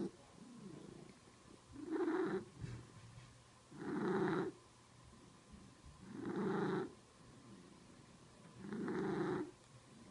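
A cat's loud, rhythmic breathing noise, like a purr or snore: four long rasping breaths about two and a half seconds apart, with quiet in between.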